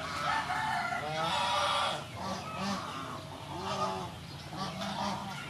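Domestic fowl calling repeatedly in the background, a string of short honking and clucking calls.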